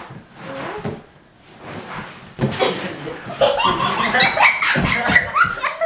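A few soft thumps and rustles as a man works his way onto an exercise ball, then several people burst out laughing about two and a half seconds in and keep laughing hard as he tumbles over it.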